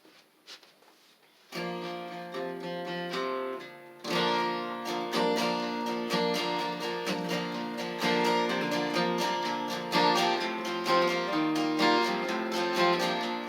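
Acoustic guitar intro: after a brief near-silent start, chords ring out about a second and a half in, then steady rhythmic strumming begins about four seconds in.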